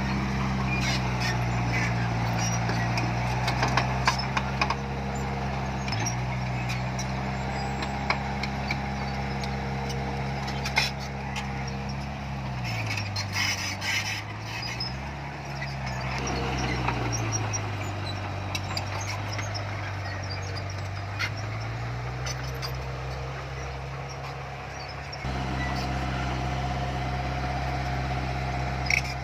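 Diesel engine of heavy earthmoving machinery running steadily. Its pitch sags twice, around the middle, as it takes load, with scattered metallic clanks and knocks.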